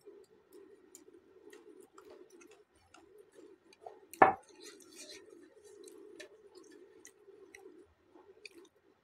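Close-miked chewing of food, soft and uneven, with small wet mouth clicks. A little past four seconds in there is one sharp knock, much louder than the chewing.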